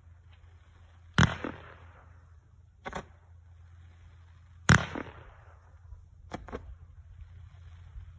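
An 18-shot, 200-gram consumer fireworks cake (Mini Brocade Crown Waterfall) firing. There are two loud bangs, about one second and about four and a half seconds in, each followed by a fading hiss, with lighter pops in between.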